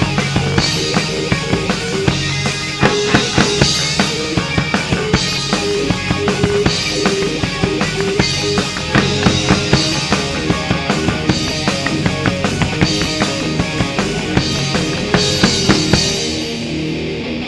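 Amateur rock band playing live with no singing: a drum kit keeps a steady beat of kick and snare under electric guitars. Near the end the highest sounds drop out and the music gets a little quieter.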